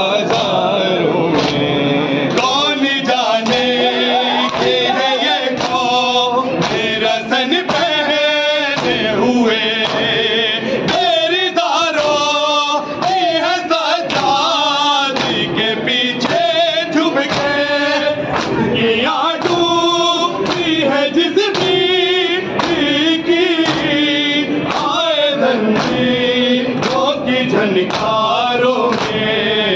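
Men chanting a noha, a Shia mourning lament, together in unison, over a steady beat of hands striking their chests (matam).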